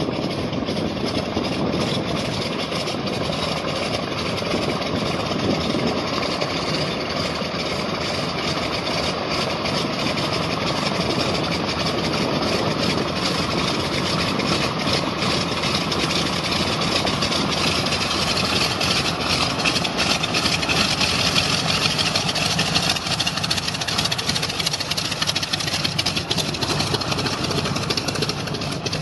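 A Beech D18S's twin Pratt & Whitney R-985 nine-cylinder radial engines running at taxi power as the plane rolls toward and past close by. The steady engine noise grows louder in the second half as it draws near, peaking a little past two-thirds of the way through.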